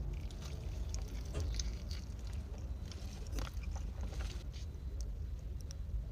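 A person biting and chewing food close to the microphone: irregular crisp clicks and smacks, thinning out after about four and a half seconds, over a steady low hum.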